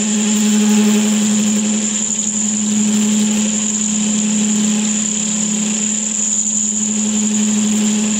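Parting-off tool chattering as it cuts into a metal bar turning in a Boxford lathe: a loud, steady low tone with a thin high whine over it. The chatter is the sign of a faulty parting setup, which the machinist puts down to a wrong clearance angle on the tool.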